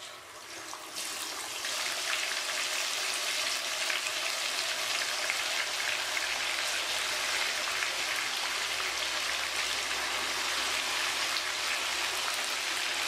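Marinated chicken leg pieces going into hot ghee and deep-frying. The sizzle builds over the first second or two as the pieces go in, then holds as a steady crackling hiss of vigorously bubbling fat.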